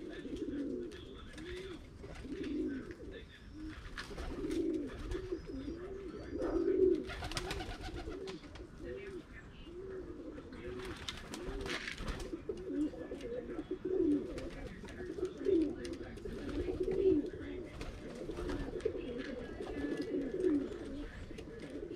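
Pigeons cooing: a continuous run of low coos, each rising and falling, about two a second and partly overlapping. A few short rustling noises break through in the first half.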